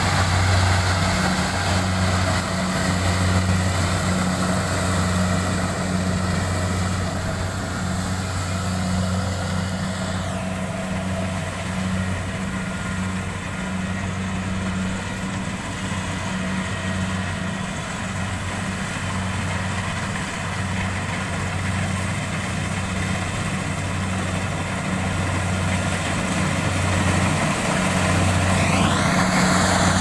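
Kubota rice combine harvester's diesel engine running steadily as it cuts and threshes rice: a steady low hum, somewhat fainter in the middle and louder again near the end as the machine comes close.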